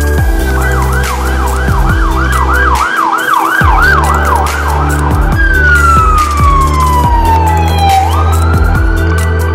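Police car siren in a fast yelp, about three swings a second, which changes about five seconds in to one long falling wail and then rises again near the end. Underneath runs electronic music with a heavy bass beat.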